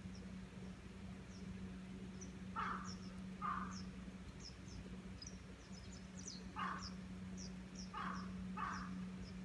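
A crow cawing five times, in a pair, a single call, then another pair, while small birds chirp high and fast throughout. A steady low hum runs underneath.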